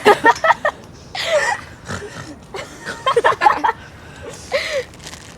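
Teenage girls laughing and coughing in short bursts; one of them is coughing and struggling to breathe.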